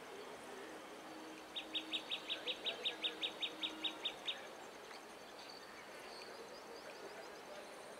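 A bird calling a quick, even series of about fifteen sharp, high notes, about five or six a second, that stops after nearly three seconds.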